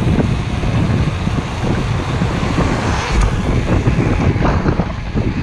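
Wind buffeting the microphone of a mountain biker's action camera while riding: a loud, steady low rumble, with a few short knocks partway through.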